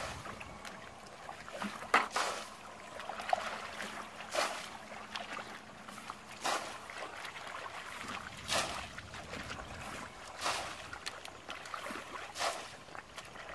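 Water splashing as a bucket bails muddy water out of a shallow ditch, one splash about every two seconds.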